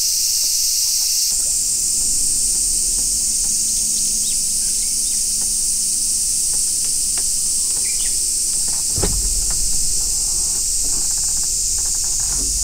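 Dense, steady drone of cicadas in the summer trees, loud and high. A few faint clicks, and a low thump about nine seconds in.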